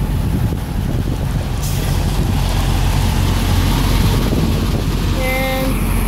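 Red Freightliner Cascadia semi-truck's diesel engine running as the tractor-trailer drives up and passes close by, with a rushing hiss of tyres and air that builds up from about a second and a half in. A brief tone sounds near the end.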